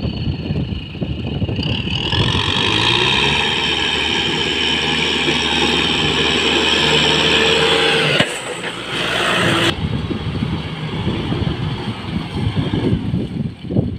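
Kubota M6040SU tractor's diesel engine working hard as the tractor struggles through deep mud: it revs up and holds a high, steady note for several seconds, then drops abruptly about eight seconds in to a lower, rougher rumble.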